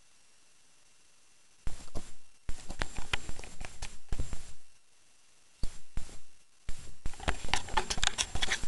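Scratchy rustling and knocking handling noises in irregular bursts. They begin about a second and a half in, after near silence.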